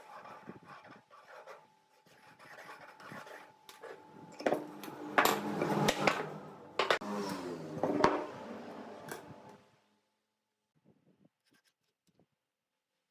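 Pencil scratching across a wooden board as arcs are drawn with a homemade strip compass swung round a nail pivot, the strip rubbing and squeaking on the wood, with a few sharp knocks. It stops about ten seconds in, leaving only faint small scrapes.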